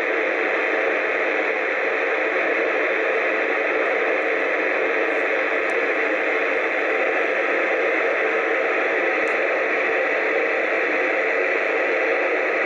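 FM static hiss from a Yaesu FT-857 transceiver's speaker, tuned to the ISS downlink with no voice coming through: the receiver is open on noise between transmissions.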